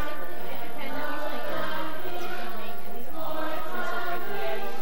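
Music with a group of voices singing together, steady throughout.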